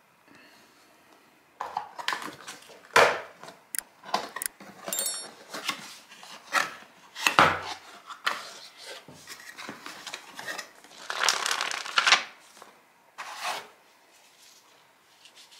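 Cardboard camera-box packaging handled: flaps folded open and inner cardboard pieces slid and lifted out, with irregular rustling, scraping and tapping. A brief high squeak comes about five seconds in, and a dull knock midway.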